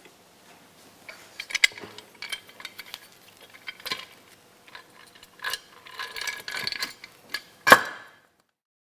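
Finned cast-aluminium automatic transmission oil pan being handled and set onto the transmission: scattered light metal clinks and scrapes, with one sharp clack near the end.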